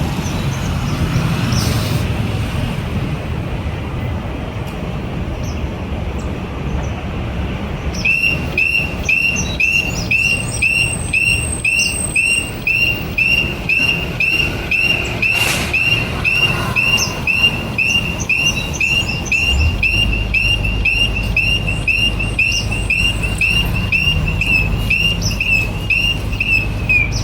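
Audible pedestrian signal at a traffic light crossing, giving short high electronic chirps a little over two a second, starting about eight seconds in, over road traffic. A vehicle engine idles low in the second half.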